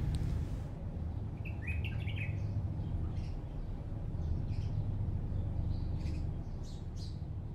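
Small birds chirping: short, high calls scattered throughout, over a low steady rumble of outdoor ambience.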